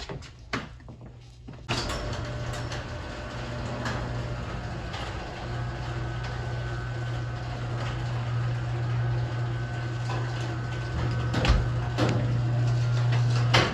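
A motor running steadily with a strong low hum, starting about two seconds in, growing a little louder partway through, and cutting off suddenly at the end.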